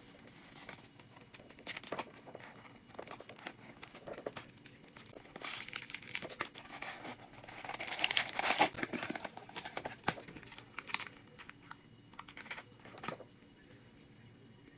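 Packaging crinkling and tearing in irregular crackles as a toy is unwrapped, loudest about eight seconds in.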